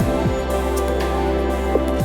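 Soft background music with sustained synthesizer tones and a deep falling bass note about every two seconds.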